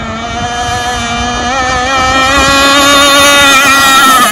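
Gas-powered two-stroke engine of an Enforcer Stingray RC hydroplane running flat out, a steady high buzz that grows louder as the boat comes closer.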